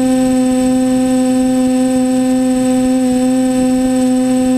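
TBS Discovery quadcopter's electric motors and propellers humming at a steady pitch while it hovers, with a faint high whine above.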